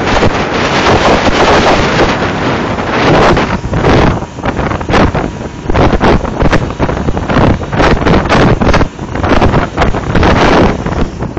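Heavy wind buffeting the microphone of a camera on a motorcycle at highway speed, swelling and dipping in gusts, over the noise of the motorcycles riding in the group.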